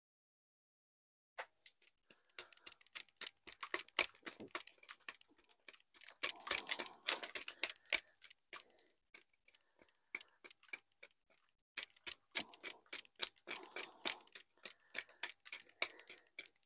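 Bonsai tools working through a trident maple's root ball: a fast, irregular run of small clicks and scratches as old soil is raked out and the roots are picked at, with denser gritty stretches about six seconds in and again near thirteen seconds.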